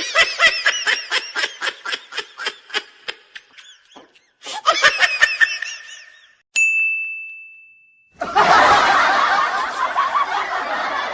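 Laugh sound effects played back to back: a rapid, high-pitched run of laughter and then a shorter laughing burst. A single ding starts sharply about six and a half seconds in and rings out as it fades, and then a crowd of many people laughs together.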